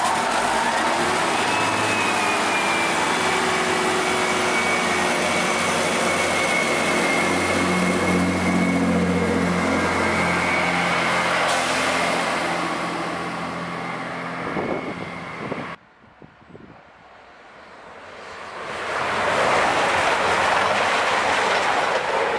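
EMR Regional diesel multiple unit moving off past the platform, its underfloor diesel engine running steadily under load with a thin whine above it. After a sudden cut, an East Midlands Railway Intercity Meridian diesel train approaches, and its rush of noise builds to the loudest point near the end.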